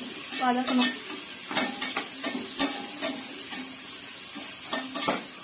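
Sliced onions sizzling as they fry in ghee and oil in an aluminium pressure cooker, while a metal spoon stirs them, knocking and scraping against the pot at irregular intervals. The onions are being sautéed until golden brown.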